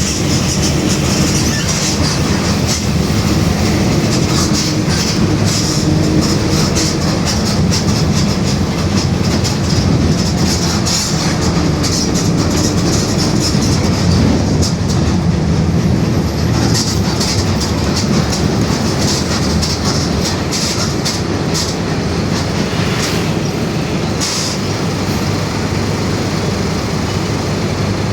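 Mercedes-Benz OF-1721 BlueTec 5 bus under way, its diesel engine and drivetrain running steadily with the differential growling. Constant clicks and rattles sound over the rumble.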